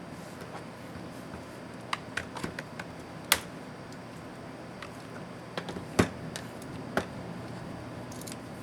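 Light clicks and taps of small plastic and metal laptop parts and tools being handled while taking a Lenovo IdeaPad S210 apart: an irregular scatter of small clicks, with two sharper knocks about a third and two thirds of the way in, over a steady low hum.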